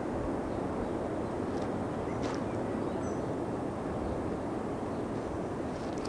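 Steady rush of heavy rain falling in a thunderstorm, with a few faint bird chirps.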